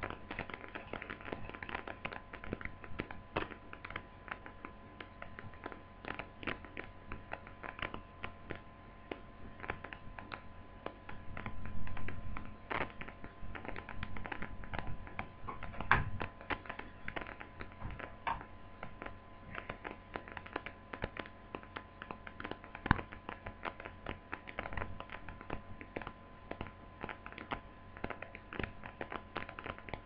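Small plastic laptop parts clicking, tapping and scraping as they are handled, while replacement touchpad mouse buttons and their ribbon are threaded into place, with a few louder knocks around the middle. A faint steady hum runs underneath.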